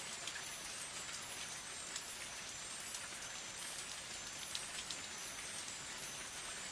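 Steady rain falling, an even hiss dotted with frequent sharp clicks of individual drops hitting a surface close by.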